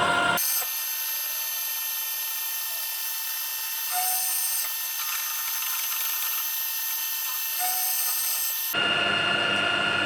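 Power drill running steadily on a steel plate with a high-pitched whine, changing briefly twice. A louder, harsher grinding noise from a power tool plays for a moment at the start and again from about nine seconds in.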